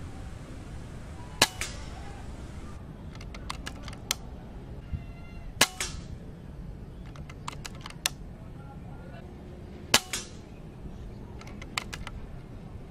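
Three rifle shots about four seconds apart, with clusters of quieter clicks between them. The shots are fired at a paper target to check that the scope's turret returns to zero after being dialed back to centre.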